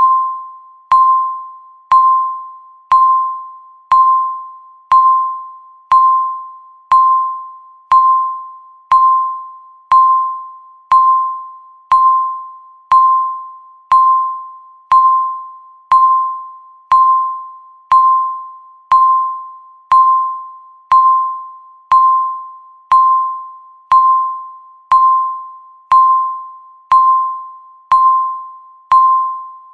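Electronic countdown-timer beep repeating once a second: a single tone near 1 kHz that starts sharply and fades away before the next, one beep for each second left on the timer.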